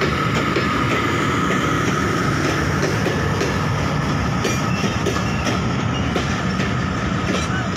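Bangladesh Railway passenger coaches passing at speed close by, the wheels clattering over the rail joints in a steady, loud run of clicks and rumble.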